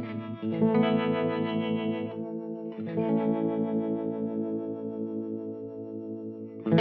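Electric guitar chords strummed and left to ring through an MXR tremolo pedal on a slow, vibe-like harmonic setting, with some overdrive. The sustained notes waver slowly, and fresh chords come in about half a second in and about three seconds in. A short loud burst comes right at the end.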